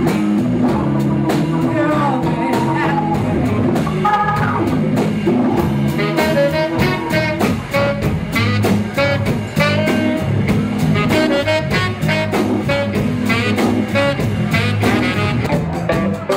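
Live band playing: a tenor saxophone line over electric bass and a drum kit keeping a steady beat.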